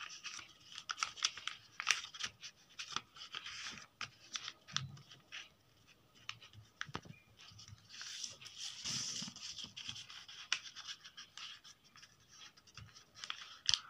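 Sheet of lined notebook paper being folded and creased by hand: irregular scratchy rustling with short crisp clicks, busiest about eight to ten seconds in.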